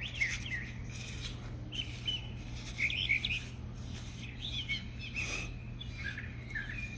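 Wild songbirds chirping in several short, quick phrases, over a steady low background hum.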